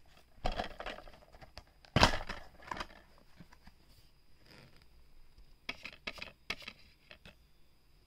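Plastic DVD case being handled and opened: a sharp plastic snap about two seconds in, with lighter clicks and rattles before it and a quick run of them near the end.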